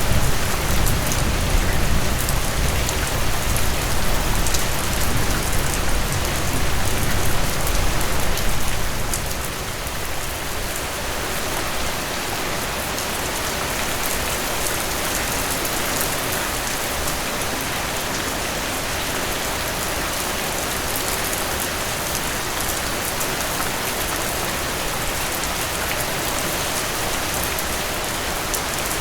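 Steady rain falling, an even hiss of drops on surfaces. A low rumble underneath makes it louder for the first nine seconds or so, then dies away and leaves the rain alone.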